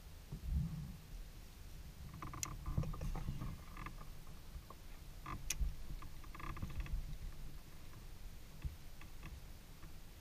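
Creaks and a few sharp clicks from a Delta 12.10 kayak and its paddle while paddling on calm water, over a low rumble. The creaking comes in two short spells, a couple of seconds in and again past the middle, with two sharp clicks about three seconds apart.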